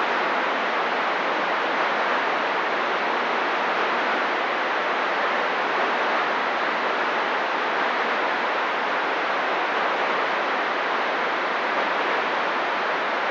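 CB radio receiver hissing with steady open-channel static between transmissions.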